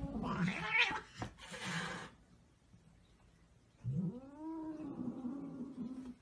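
Cat giving one long yowl of about two seconds, starting about four seconds in, its pitch rising and then holding steady. Before it come a couple of seconds of short bursts of noise.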